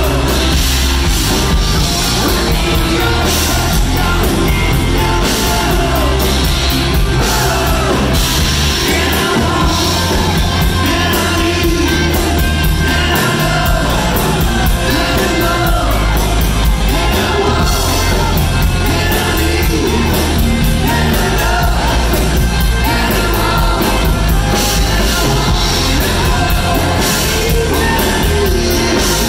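Live rock band playing loud: lead vocals sung over electric guitars and a drum kit.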